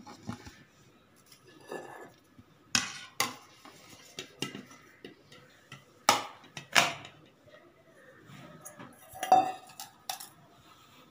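Stainless steel baking pan knocking and clinking against a ceramic plate as it is flipped over to turn out a cake, with a handful of sharp, separate knocks spread through.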